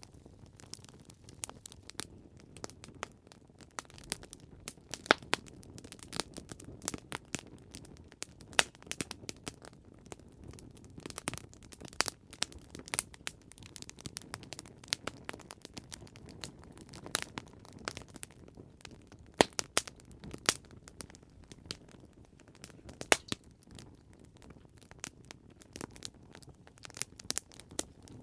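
Campfire burning: dense, irregular crackles and sharp pops of burning wood over a low steady rush of flame.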